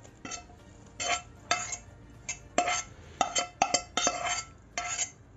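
A metal spoon scraping grated, fried cauliflower out of a kadhai, with about a dozen irregular, sharp clinks of metal on metal that ring briefly.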